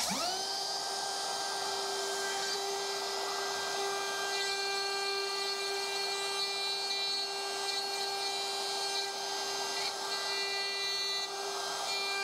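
DeWALT DCW600 cordless compact router in a plunge base spinning up right at the start, its whine rising quickly to a steady high pitch. It then runs at constant speed while the bit cuts into wood.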